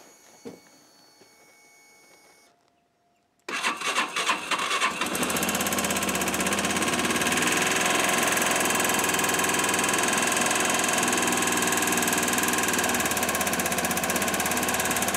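Yamaha YBR 125 single-cylinder four-stroke engine, fitted with a 150 big-bore kit, cold-started at freezing temperature. It catches about three and a half seconds in, runs unevenly for a moment, then settles into steady, fast-pulsing running.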